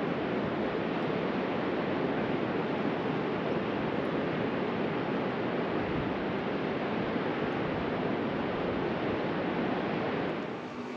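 Steady rushing of a mountain river's white water, an even hiss with no pauses, which cuts off shortly before the end.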